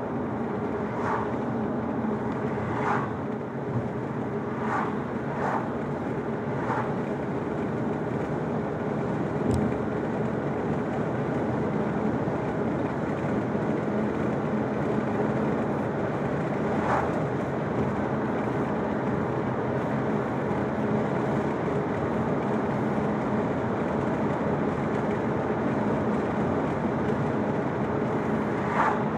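Steady road and engine noise heard inside a moving car's cabin, with a few brief sharper sounds in the first seven seconds, once midway and again near the end.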